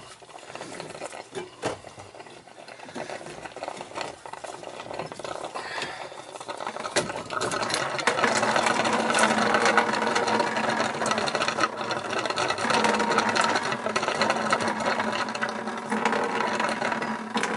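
Light knocks and clicks as the old zone valve is worked off the copper piping. From about seven seconds in comes a steady stream of boiler water pouring out of the open pipe end and splashing into a bucket below. The water is draining through the zone valve that won't shut off.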